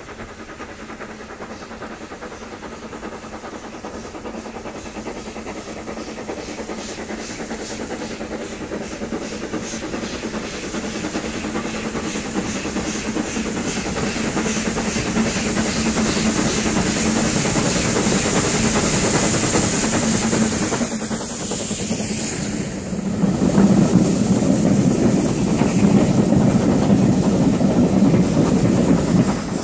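Steam locomotive hauling coaches, its exhaust beats growing steadily louder as it comes nearer. About three-quarters of the way through it passes close by, and the sound jumps to a louder, heavier rumble as the coaches run by below.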